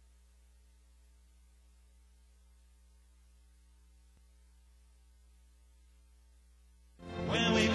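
Near silence except for a faint, steady electrical hum with a light hiss. About seven seconds in, loud music starts abruptly.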